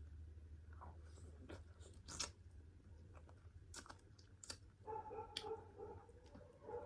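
Quiet close-up eating sounds from a meal of pork curry and rice: soft chewing with scattered mouth clicks and smacks, the sharpest just after two seconds. From about five seconds in, a faint steady whine-like tone joins.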